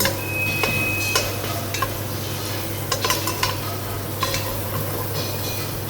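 Onion frying in a pan, sizzling steadily, while a cooking utensil is stirred through it, scraping and clicking against the pan at irregular moments.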